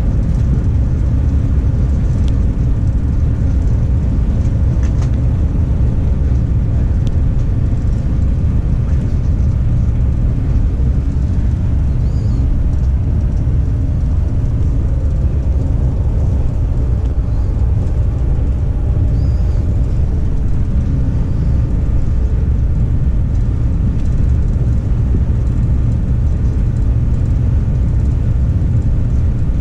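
Steady low rumble of a moving passenger train heard from inside the carriage, with a few faint light clicks.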